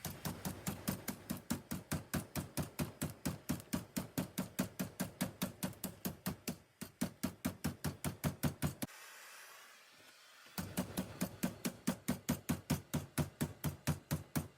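Hand hammer striking a sheet-steel floor patch panel clamped over angle iron in a vise, bending its flange over: a steady run of sharp blows, about five a second, with a short pause about nine seconds in.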